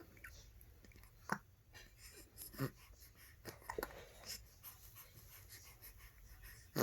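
A two-month-old baby hiccuping softly: a few short hiccups roughly a second apart, with quiet breathing between.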